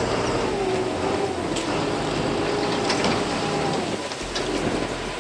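Fishing boat's engine running, a steady drone with a constant hum.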